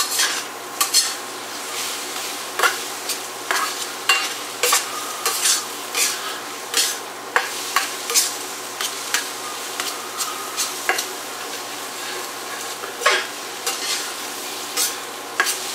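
Metal spatula scraping and knocking against a stainless steel frying pan while eggs scrambled with potatoes, onions and bacon fry in it, over a steady sizzle. The scrapes and knocks come irregularly, every half second to a second.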